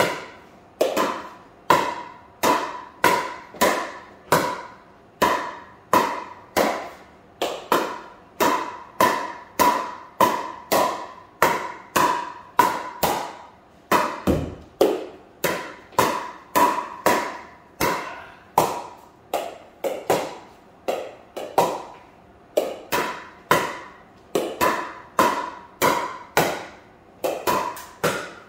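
A pickleball paddle repeatedly hitting a plastic pickleball in a quick volley drill: sharp pops a little under two a second, each ringing briefly in the room.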